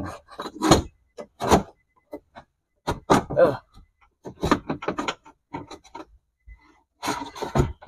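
Car window regulator clanking and scraping against the sheet-metal door shell as it is worked out through the access hole: a series of short knocks and clicks with pauses between them, and a brief scraping rub about three seconds in.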